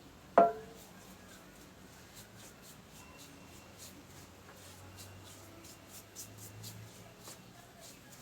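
A single sharp knock with a short ring about half a second in, then low background noise with faint ticks.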